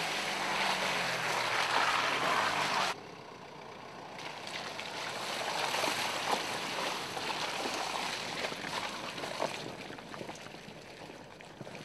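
Mercedes-Benz GLK 250 BlueTEC SUV driving through wet mud: its four-cylinder diesel engine running under the noise of tyres churning and splashing. The sound cuts off abruptly about three seconds in, giving way to a quieter stretch of tyres working through mud with scattered small clicks and pops.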